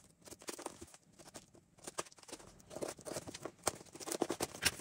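Hands opening and handling a parcel's packaging: scattered light rustles, taps and clicks, sparse at first and busier in the second half.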